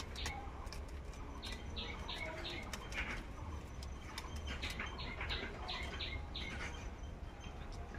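Hard elephant apple (chalta) being sliced on a boti, the curved floor-held blade: a series of short crunching, scraping strokes at irregular intervals, with a few sharp clicks.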